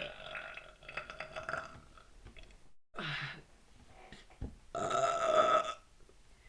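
A woman belching three times, gas from a litre of sparkling water drunk nonstop. There is a long belch at the start, a short one about three seconds in, and the loudest, held for about a second, near the end.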